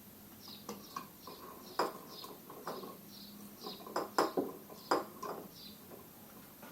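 Sharp clinks and knocks of metal parts and tools being handled, the loudest ones about four to five seconds in, over a small bird chirping repeatedly about three times a second.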